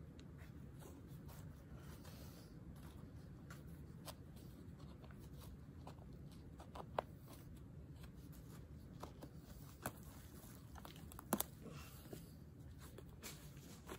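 Faint scraping and crumbling of soil as it is picked loose with a wooden digging stick and gloved fingers, with a few sharp clicks, the loudest about seven seconds in and a quick pair about eleven seconds in.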